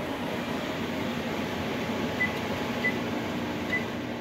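Steady whooshing, fan-like kitchen noise, with three short high beeps at uneven gaps in the second half.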